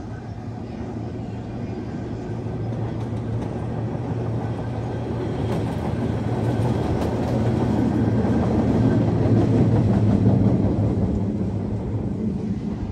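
Rear cars of a freight train rolling slowly past on the rails, with a hi-rail pickup truck running along the track behind them. It is a steady low rumble that grows louder to a peak about ten seconds in, then eases off.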